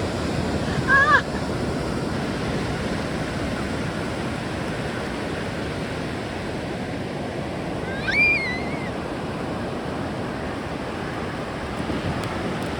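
Ocean surf washing steadily onto a beach. It is broken by two short, high-pitched calls, one about a second in and a longer, wavering one about eight seconds in.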